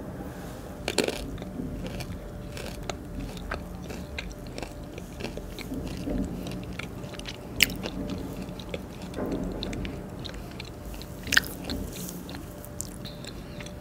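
Close-miked chewing and crunching of black sesame–coated almonds, with many short sharp crunches, the two loudest a little past halfway and about two-thirds of the way through, over a low steady hum.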